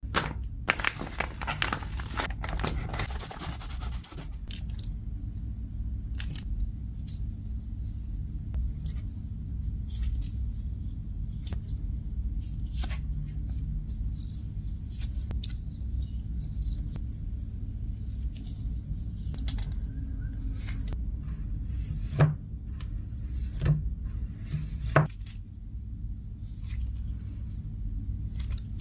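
Hand-handling noises over a steady low hum: crinkly rustling and scraping for the first few seconds, then scattered soft scrapes and clicks, with three sharper, louder clicks near the end.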